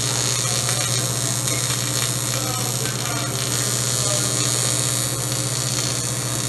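TIG welding arc buzzing steadily with a hiss as a bead is laid on a metal intercooler pipe joint.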